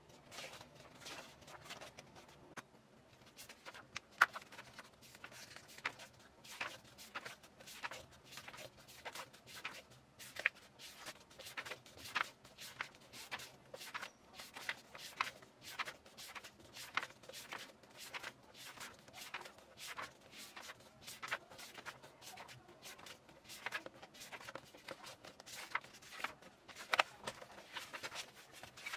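Paper pages of a photobook being turned and smoothed flat by hand: a continuous, irregular run of short paper rustles and soft taps, with one sharper snap about four seconds in.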